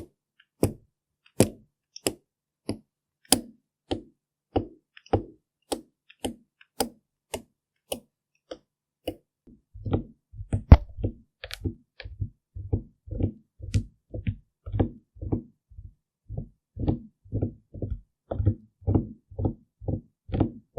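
Makeup ASMR tapping on a mannequin head and makeup tools: a steady run of light taps, sharp clicks at first, changing about halfway through to softer, duller thuds about twice a second, with one louder knock shortly after the change.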